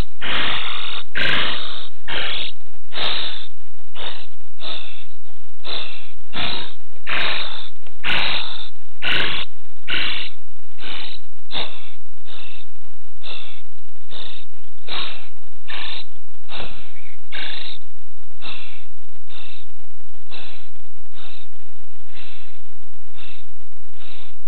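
Spotless starling nestlings begging inside the nest box: a steady run of short, noisy rasps, about one and a half a second, that keeps going after the visiting adult at the entrance has left.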